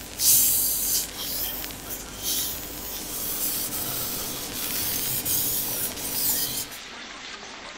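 Kitchen knife blade drawn across a Japanese whetstone in repeated sharpening strokes, each pass a rasping scrape. The strokes stop near the end.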